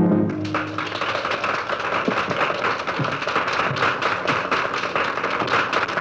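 Audience applauding: many hands clapping steadily. A band's final chord rings out briefly at the very start.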